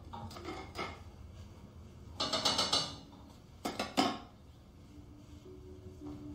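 Pots, pans and utensils clattering on a stove: a dense burst of metallic clanking about two seconds in, then a few sharper clinks around four seconds in.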